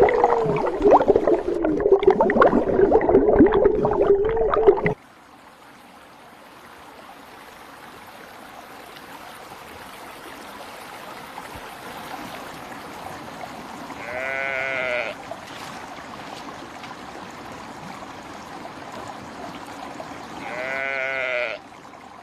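Loud rushing, splashing water that cuts off abruptly after about five seconds, followed by a quieter steady flow of water in a stream. A sheep bleats twice in the second half, each bleat about a second long.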